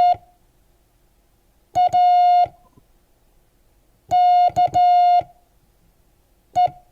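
Morse code practice tone sent slowly, with long gaps between letters, spelling the word MAKE: the end of M's second dah, then A (dit-dah), K (dah-dit-dah), and E as a single dit near the end.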